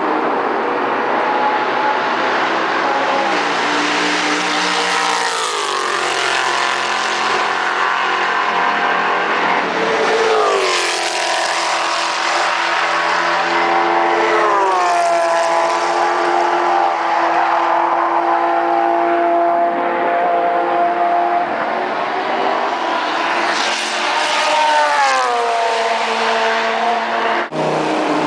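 Racing cars' engines running at high revs on the circuit, the engine note sweeping down in pitch about five times as cars go by, with steady stretches between.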